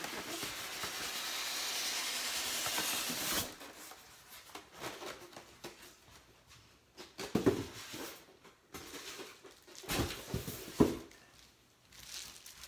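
Packaging being pulled out of a cardboard box: a scraping rustle that builds for about three and a half seconds and stops abruptly, then a few scattered knocks and taps as parts are handled.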